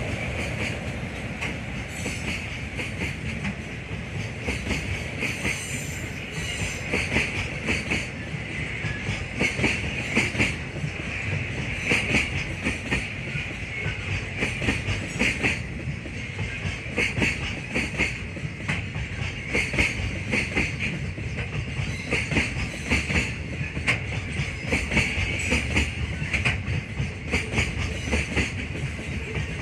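Freight train rolling past, its wagon wheels clicking over the rail joints in a steady run of clatter, with a high squeal from the wheels throughout.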